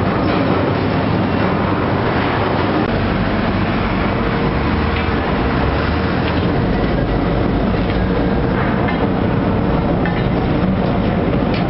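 Stone crushing plant running: a steady, loud mechanical din of crusher and conveyor machinery, with a few faint knocks.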